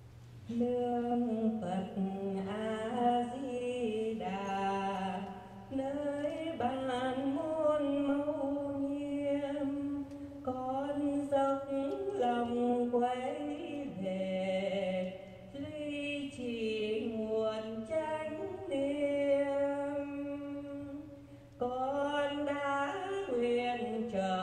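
A woman singing solo and unaccompanied into a handheld microphone: long held notes in phrases, with short pauses between them.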